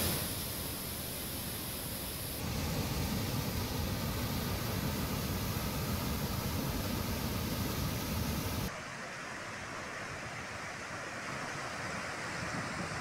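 Muddy floodwater rushing hard over a lake's overflow weir, a steady roar of water noise. It changes abruptly twice as the footage cuts, growing thinner and quieter about two-thirds of the way through.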